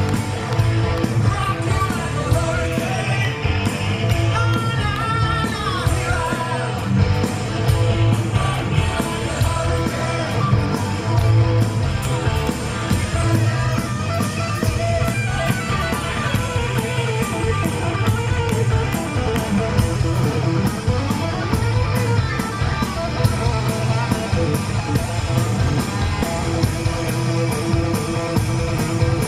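Live hard-rock band playing: distorted electric guitars, bass guitar and drums keeping a steady beat, with singing over them and guitar notes bent in pitch a few seconds in.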